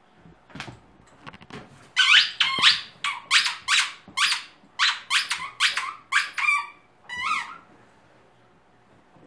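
Rubber squeaky dog toy squeaked again and again as a dog bites down on it: a quick run of about a dozen sharp, high squeaks, roughly two a second, after a few soft knocks.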